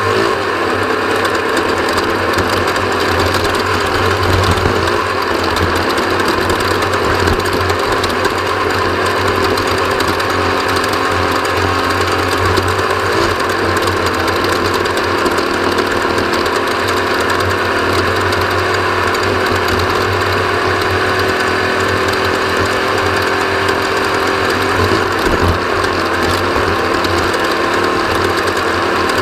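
Onboard sound of an off-road race vehicle at speed: the engine runs hard with its pitch slowly rising and falling, under a steady mechanical rattle.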